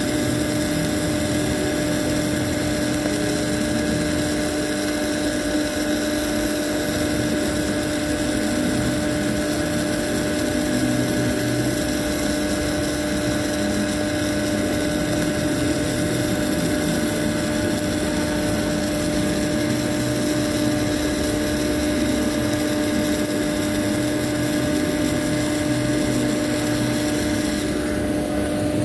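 Welding machine humming steadily at one constant pitch under a hiss, with the high part of the hiss dropping away near the end.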